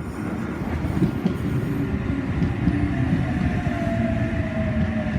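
H-set "Oscar" double-deck electric passenger train running in, with a steady low rumble and, from about halfway in, a thin whine that slowly falls in pitch as it slows.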